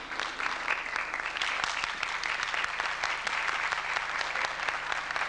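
Audience applauding: dense, steady clapping from many people at the end of a dance number.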